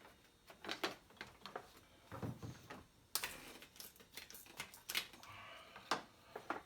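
Irregular sharp metallic clicks and clacks of hand tools and parts being handled while working on a car engine, with a dull thud about two seconds in. The loudest clack comes about three seconds in and is followed by a quick run of lighter clicks.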